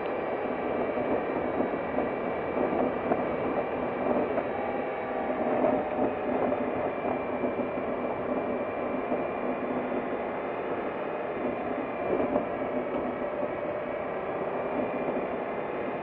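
A vehicle driving along a dirt road: a steady, busy mechanical running noise with several held tones, unbroken throughout.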